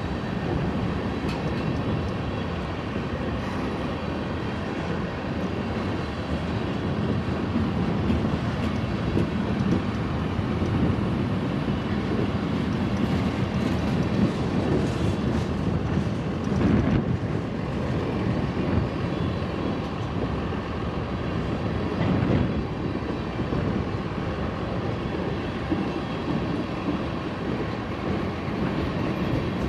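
Freight train cars (covered hoppers and tank cars) rolling past at close range: a steady rumble of steel wheels on rail, with a couple of brief louder surges partway through.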